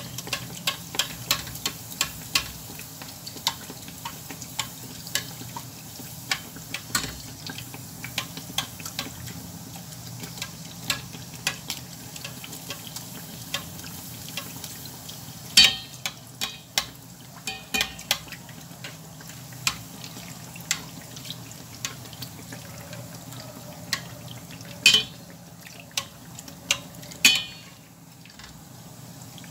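Dough rounds deep-frying in a small stainless steel saucepan of hot oil, sizzling steadily, while a metal spoon ladles oil over them so they puff up, clicking against the pan many times. The clicks come several a second at first, then thin out, with a few louder knocks of the spoon on the pan.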